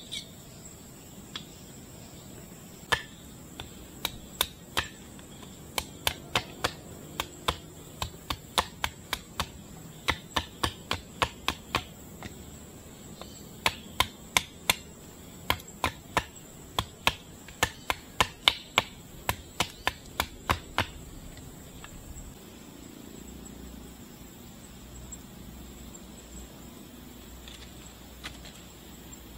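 A long run of sharp knocks on wood, irregular at roughly two or three a second, that stops about three quarters of the way through. The knocks are typical of striking wood with a blade or a mallet.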